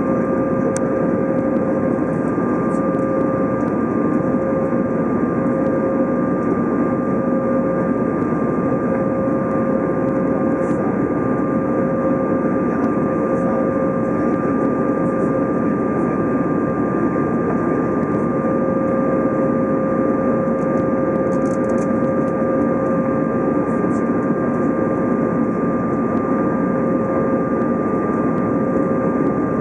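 Steady cabin noise inside an Airbus A320 in flight: the constant rush of air and the jet engines, with a few steady whining tones running through it.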